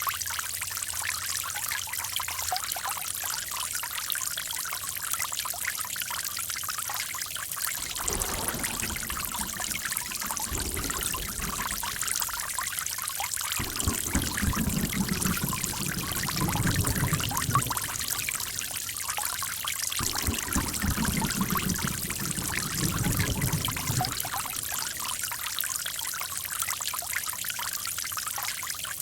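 Running water trickling and splashing steadily. Deeper, fuller surges of flow come and go in the middle.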